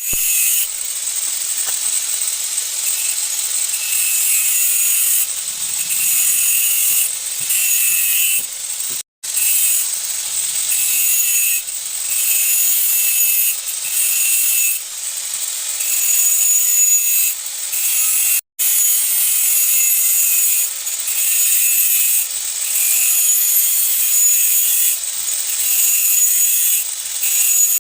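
Hacksaw cutting through the metal body of a motorcycle rear shock absorber, steady back-and-forth strokes about once a second, to open the shock for rebuilding. Two very brief breaks interrupt the sawing.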